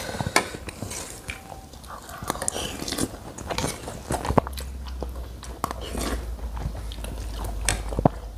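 People eating at a table: spoons clicking and scraping on plates, with chewing close to the microphone, in many short sharp clicks.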